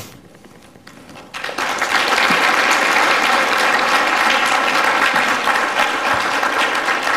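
Audience applauding at the end of a talk: quiet for the first second and a half, then the clapping rises quickly into full, steady applause.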